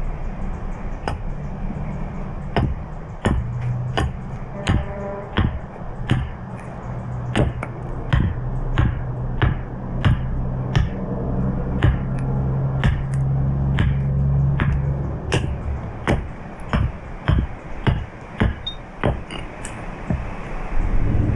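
Tool strokes cutting into the wood of a spoon blank being carved: a steady run of sharp cuts, about two a second, some thirty in all. A low steady hum sits under them for about the middle ten seconds.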